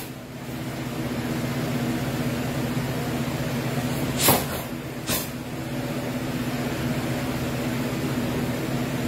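Steady low mechanical hum from a room appliance, with two sharp snaps less than a second apart a little before the middle, from a karateka's strikes and movements during a kata.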